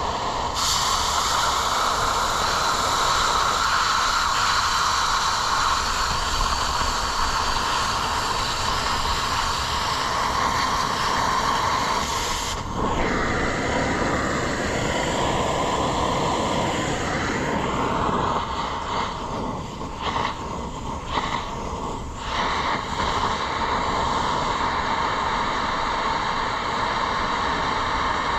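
Cutting torch hissing steadily while cutting through steel mounting plates. A sharper, brighter hiss cuts in about half a second in and stops suddenly near the middle. Near the end the sound flutters with several short dips.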